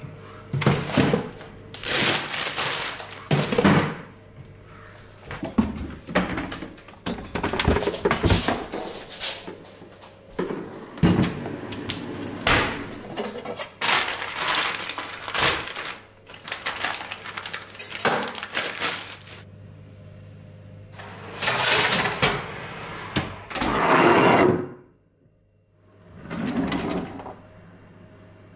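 Kitchen handling noises: a freezer drawer pulled open and rummaged, a plastic bag of frozen crinkle-cut fries rustling and crackling, and a kitchen drawer opening, in a string of short scrapes and rustles over a faint low steady hum.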